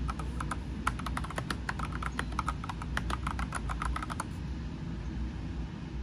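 Typing on an Epomaker EP84 mechanical keyboard fitted with matcha keycaps: a quick, uneven run of key clacks for about four seconds, then the typing stops.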